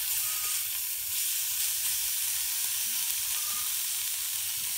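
Meat slices sizzling steadily in oil on the hot plate of an electric heat-welding iron used as a griddle.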